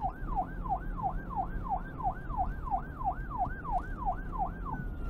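Emergency-vehicle siren in a fast yelp, its pitch sweeping up and down about three times a second, switching near the end to one long, slowly falling tone, over a low rumble.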